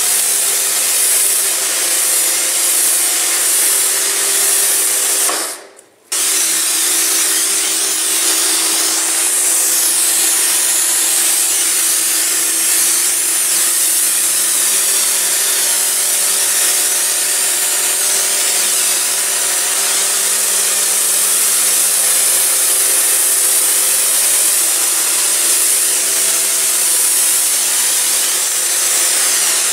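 Kärcher K2 electric pressure washer running: a steady motor hum under the loud hiss of the high-pressure jet blasting dirt off floor tiles. The sound cuts out for about half a second some six seconds in, then comes straight back.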